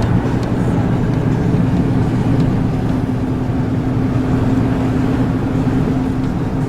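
Steady drone of a truck's engine and tyres heard from inside the cab while driving, with a constant low hum.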